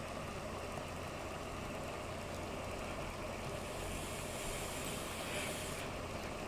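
Self-heating hot pot's water-activated heating pack boiling under the covered pot: a steady hiss of steam venting through the hole in the lid.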